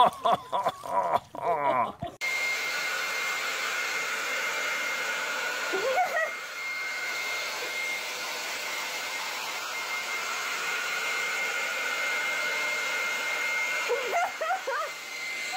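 Hair dryer switched on about two seconds in and running steadily, a constant rushing blow with a thin high whine. A baby makes short vocal sounds over it a couple of times. Before it, voices and laughter.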